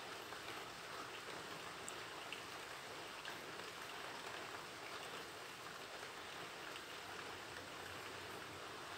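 Faint, steady crackly hiss with a few light ticks: an offset spatula spreading whipped cream over a chocolate sponge layer.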